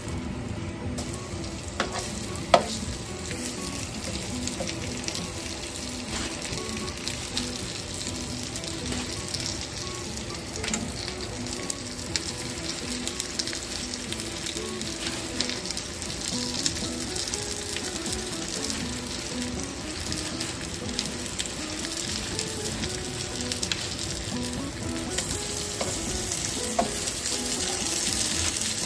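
Fish sizzling as it pan-fries, a steady frying noise that grows louder near the end. A sharp click sounds about two and a half seconds in.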